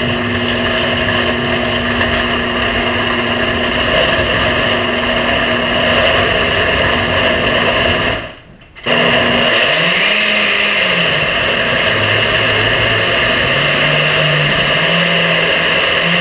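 Countertop blender with a glass jar running at full speed, blending tomatoes, chilies and herbs with water into a sauce. It cuts out briefly about halfway through, then runs again, its hum shifting and stepping up in pitch as the mixture turns smooth.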